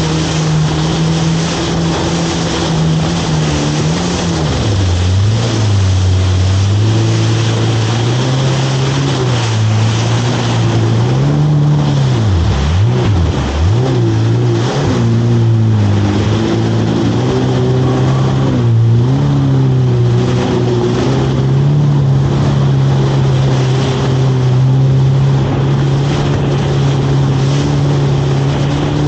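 Jet ski engine running at speed over a steady rushing hiss. Its pitch drops about four to five seconds in, dips sharply twice around twelve to thirteen seconds, and comes back up each time before running fairly steady to the end.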